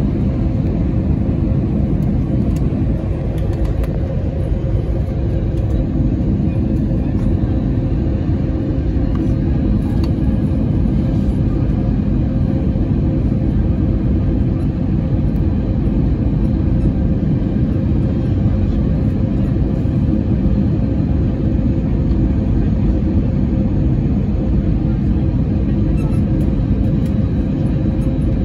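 Airliner cabin noise during the landing descent: a steady rumble of the engines and rushing air, with a constant low hum running through it.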